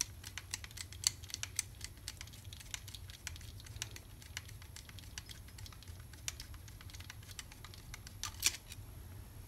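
Light, irregular metal clicks and taps of a long flathead screwdriver worked through the barrel of a Brembo race brake lever, pushing the barrel out. Two sharper clicks stand out, about a second in and near the end.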